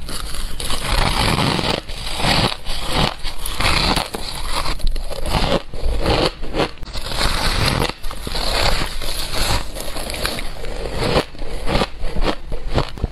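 Fluffy white ice being bitten and chewed close to the microphone: dense, irregular crunches one after another, with brief pauses between bites.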